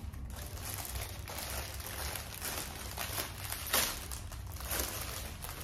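Clear plastic packaging crinkling and rustling as it is handled and opened, with a louder crackle about four seconds in.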